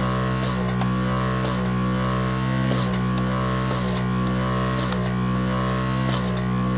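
Vacuum pump of a VDI-1 desoldering station running with a steady low hum, while short clicks come about once a second as the vacuum is worked joint by joint through the keyboard switches.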